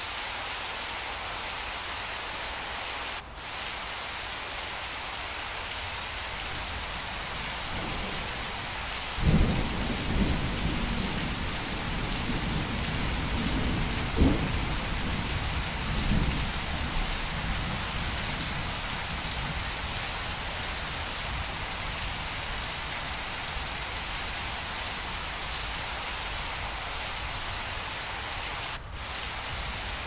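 Steady rain falling, with a rumble of thunder that rolls in about a third of the way through, peaks sharply two or three times, and fades out around the middle.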